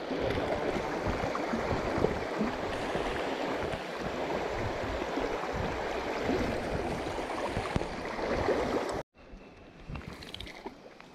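Shallow creek water running and babbling over rocks, a steady rush of noise. About nine seconds in it cuts off abruptly, leaving a much quieter background with a few faint clicks.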